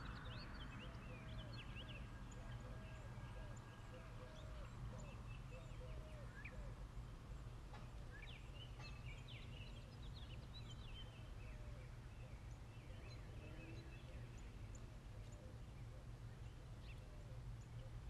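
Birds chirping and calling over a steady low hum, with a lower call repeated quickly through the first few seconds.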